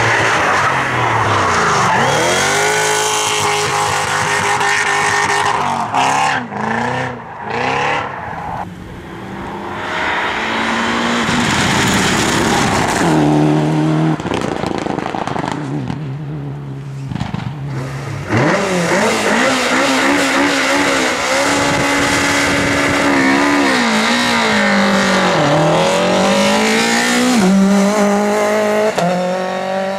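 Race car engine revving hard, its pitch climbing and dropping again and again through gear changes and lifts off the throttle. It settles to a lower, steadier note from about halfway through, then revs up again.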